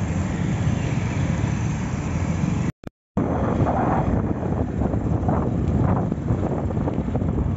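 Wind rushing over the microphone and road rumble while riding through town traffic, steady apart from a sudden break of silence of about half a second, roughly three seconds in.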